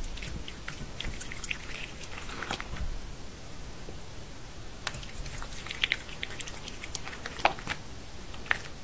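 A cat chewing and biting cubes of raw beef, with irregular small clicks and crackles.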